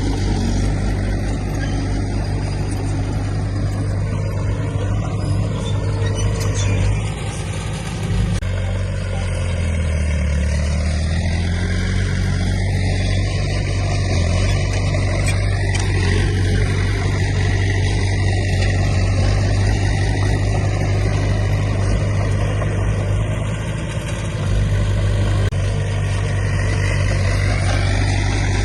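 Diesel engine of heavy earthmoving machinery running steadily under load, dipping briefly in level about a third of the way in and again near the end, with a shift in engine pitch in between.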